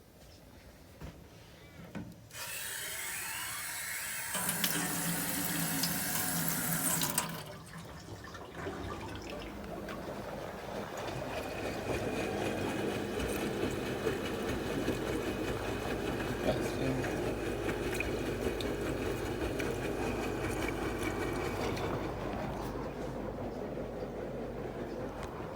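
LG washing machine mid-cycle: water rushes in with a loud hiss for about five seconds, then the drum turns steadily, churning the clothes through the water.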